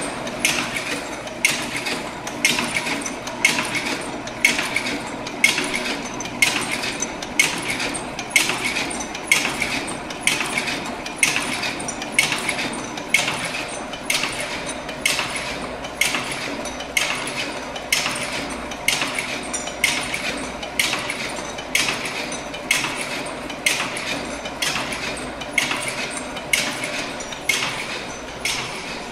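Benhil 8340 butter filling and wrapping machine running, its rotary mechanism clacking in a regular rhythm a little under two strokes a second over a steady motor hum.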